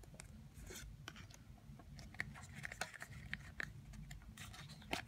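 Faint rustling, scraping and small clicks of trading cards being handled and slid out of a just-opened foil booster pack.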